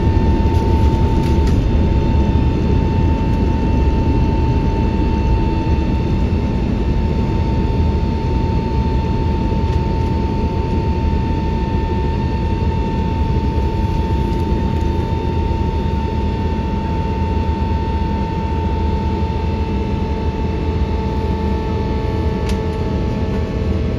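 Cabin noise of a Boeing 777-300ER in flight: a loud, steady low rumble of the GE90 jet engines and airflow, with a steady whine held through it. The whole sound eases slightly in loudness.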